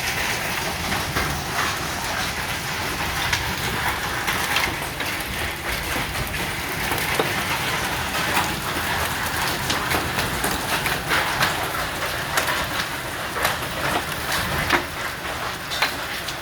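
Heavy rain pouring down steadily, with many sharp ticks of hailstones striking hard surfaces throughout.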